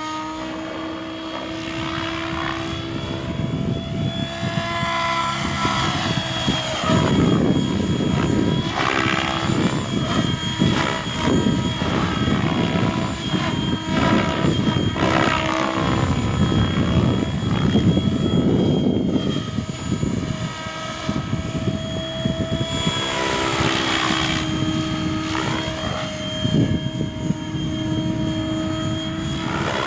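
Electric RC helicopter in flight: a steady whine from the brushless motor and rotor head. The rotor noise swells and fades and the pitch sweeps up and down as the helicopter passes back and forth, loudest through the middle.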